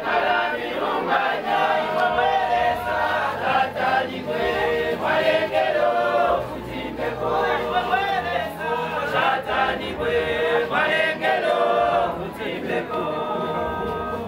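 A church choir, mostly women's voices, singing together in a steady hymn-like melody.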